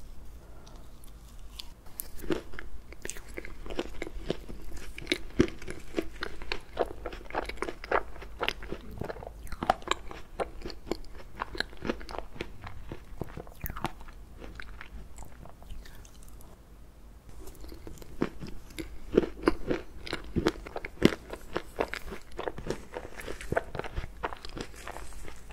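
Close-miked eating of ice cream cake: soft bites and chewing with small crunches, and a metal fork cutting into the cake and scraping the board. There is a short lull about two-thirds of the way through.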